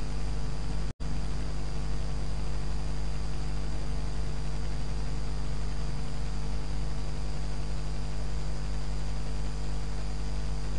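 Steady electrical mains hum with hiss in the recording, heard between narrated phrases; the audio cuts out for an instant about a second in.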